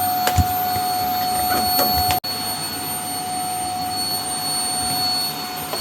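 Vacuum cleaner running steadily with a whining motor tone. It cuts out for an instant about two seconds in, then carries on.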